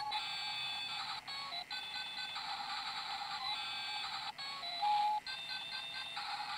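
A tinny electronic melody of short beeping notes, with no bass beneath it.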